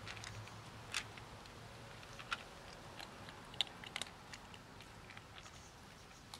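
A kitten eating dry kibble from a plastic tub: irregular crunching and sharp clicks, a few louder than the rest.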